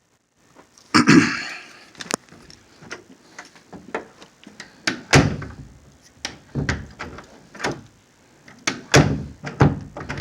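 Door knob being worked and the door opened and shut several times: latch clicks, rattles and knocks, with a loud knock about a second in and heavier thumps later. It is a test of a knob just refastened by tightening its set screw.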